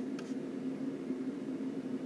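Steady low machine hum over a faint even hiss: the room tone of the studio.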